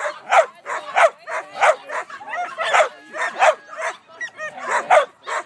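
Dog barking loudly and repeatedly, about two barks a second, with a brief lull about four seconds in.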